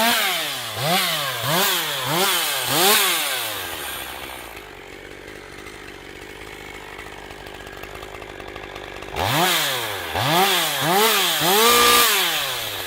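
STIHL MS 201 TC-M top-handle chainsaw's two-stroke engine blipped up and down about five times in quick succession, settling to idle for several seconds. Near the end it is revved again four times, with the last rev held briefly before falling back.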